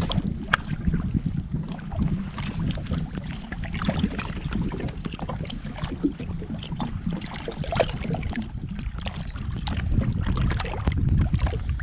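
Kommander GP1 stand-up jet ski running across the water, its engine and the rush of water under the hull mixed with gusty wind buffeting on the microphone.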